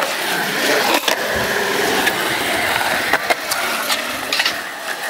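Skateboard wheels rolling on smooth concrete, a steady rolling hiss with a few sharp clacks from the board.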